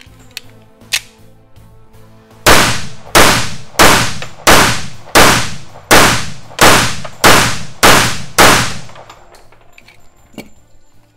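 Wilson Combat Super Grade 1911 pistol fired ten times in a steady string, about one and a half shots a second, each shot ringing out with a short echo. Rapid-fire function testing of the pistol, a magazine emptied without a stoppage.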